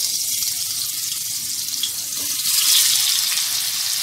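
Cubes of marinated paneer sizzling in hot oil in a kadhai, a steady hiss that swells louder for about a second some two and a half seconds in.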